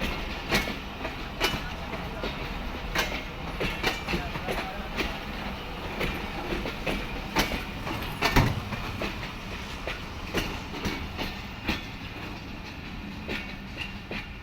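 Passenger train coaches rolling past over a steady low rumble, their wheels clacking over rail joints at irregular intervals. The loudest clack comes about eight seconds in.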